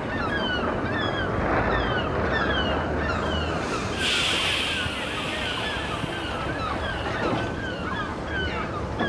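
Double-deck heritage tram rolling slowly past close by, a steady running noise with a burst of hiss about four seconds in. Short, high falling chirps repeat a few times a second over it.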